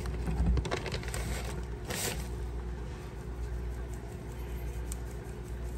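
A metal mesh sieve handled over a stainless steel mixing bowl as almond flour is poured in and sifted, with a few light knocks and scrapes in the first two seconds, then a soft, even shaking. A steady low hum runs underneath.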